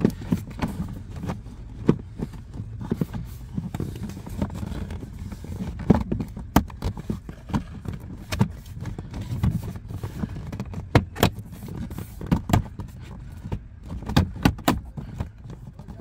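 Plastic interior trim panel being pressed and snapped into its clips by hand: irregular sharp plastic clicks and knocks with rubbing and handling noise, several clicks in quick succession near the end.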